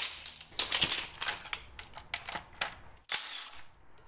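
Short bursts from a cordless driver working on a bracket of a stripped wiring harness, amid clatter of wires and small metal parts being handled.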